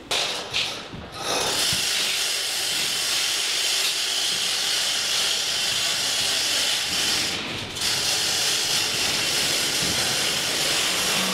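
A steady loud hiss with no clear pitch, which drops out briefly about seven seconds in, after a few short scraping sounds at the start.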